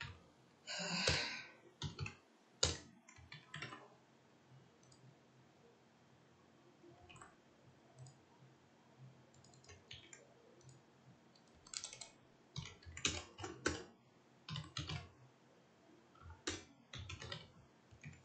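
Computer keyboard being typed on, with irregular keystrokes and clicks in scattered bursts and short pauses between them.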